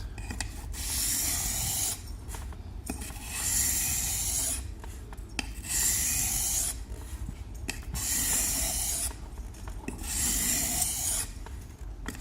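Knife blade drawn across the 1000-grit side of a Trilancer whetstone: five gritty scraping strokes, each about a second long and about two seconds apart.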